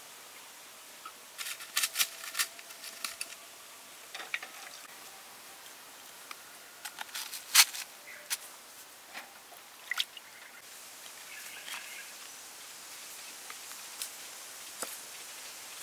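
Oyster shells clicking and clinking against crushed ice and one another as they are set on a platter, in scattered sharp clicks, the loudest about seven and a half seconds in.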